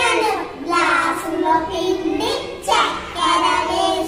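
A small group of young girls singing a Telugu action song together, in short sung phrases.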